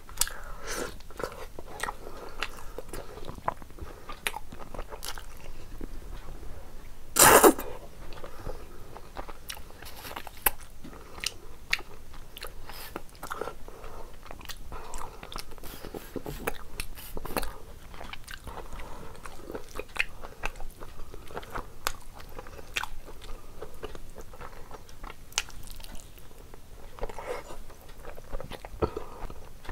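A person biting and chewing mutton curry with rice, eaten by hand: many short sharp mouth clicks and wet chewing sounds, and one loud half-second noise about seven seconds in.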